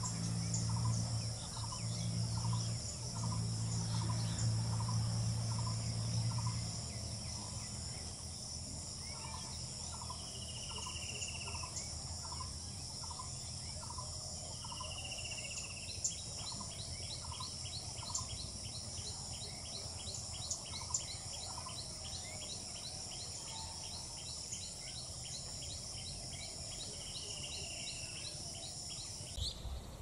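Outdoor bird ambience over a steady high insect drone: a bird repeats a short call note about every half second, a few brief whistled calls come through, and from about halfway a fast ticking call joins in. A low hum is loudest in the first several seconds.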